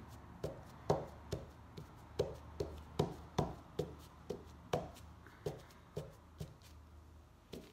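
Halved potato dabbed repeatedly onto a cotton tote bag over a table, giving soft, dull taps about two a second as paint is printed onto the fabric.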